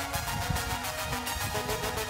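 Electronic background music with a steady beat and held synth notes.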